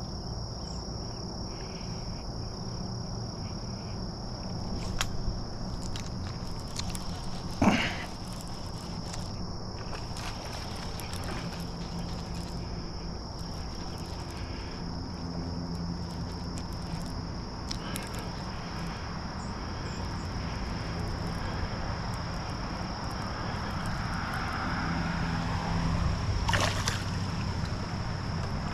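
Outdoor pond-side ambience: a steady noise bed with a constant high-pitched buzz and a faint low hum. About eight seconds in comes a single quick, sharp swish that rises in pitch, and it grows a little busier near the end.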